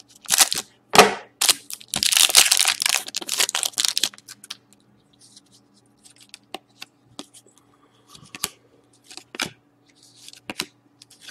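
A hockey trading-card pack wrapper is torn open with several loud rips over the first four seconds. Quieter crinkling and scattered light clicks follow as the pack is handled.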